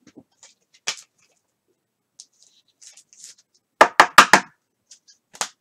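Trading cards being handled and knocked on a tabletop: scattered light taps, then four sharp knocks in quick succession about four seconds in, and one more near the end.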